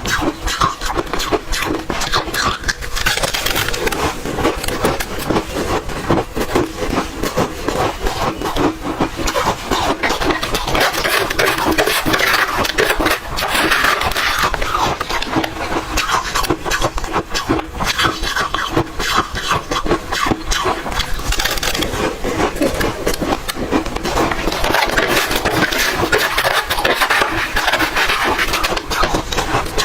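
Close-miked chewing of crunchy ice: a dense, unbroken run of crackling crunches as the ice is bitten and ground between the teeth.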